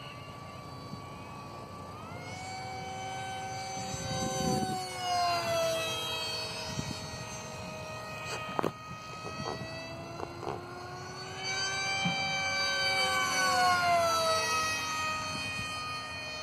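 Electric motor of a RAD JET 800 RC model jet running on a four-cell pack: a high whine of several stacked tones that rises in pitch about two seconds in. It then drops in pitch twice as the plane passes, once around five seconds in and again near the end, and is loudest just before the second drop.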